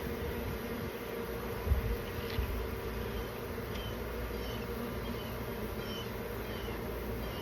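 Many honeybees buzzing in a steady, dense hum from a colony being removed. A couple of low bumps come about two seconds in, and short high chirps repeat faintly in the second half.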